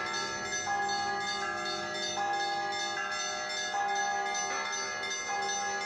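Church bells ringing in a bell tower: several bells of different pitches are struck in a quick repeating pattern, their tones ringing on and overlapping over a steady lower hum.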